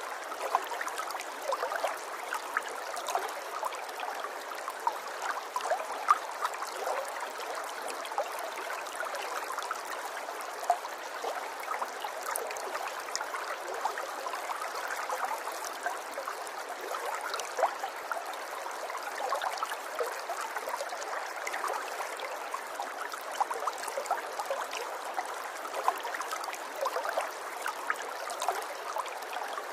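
River water flowing over stones: a steady babbling, with frequent small splashes and gurgles throughout.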